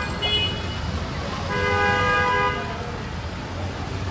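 Vehicle horns in street traffic: a short toot about a quarter second in, then a louder horn blast lasting about a second from about a second and a half in, over a steady low traffic rumble.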